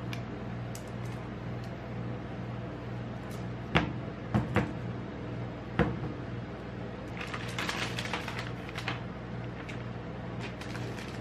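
Metal spatula knocking a few times against a paper cup and the steel cold plate while ice cream rolls are pressed into the cup, the first knock the loudest, followed about seven seconds in by crinkling of chocolate bar wrappers being laid on the plate. Underneath runs the steady hum of the rolled ice cream machine.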